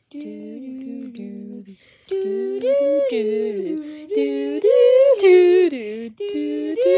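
Humming a wordless tune: sustained voice notes that slide up and down in pitch, with a brief break about two seconds in and louder notes after it.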